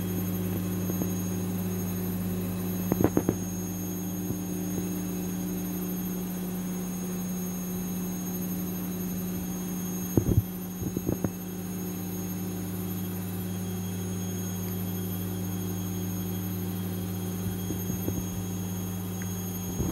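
A steady low electrical hum, broken by short clusters of soft knocks about three seconds in, twice around ten to eleven seconds in, and near the end.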